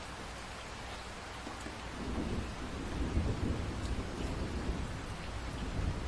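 Steady rain hissing, with a low roll of thunder building about two seconds in and rumbling on through the rest.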